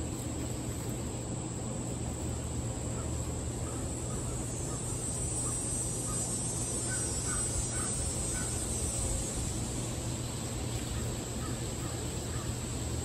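A steady, high-pitched insect drone of crickets, swelling a little mid-way, with a short run of about four quick bird calls about seven seconds in.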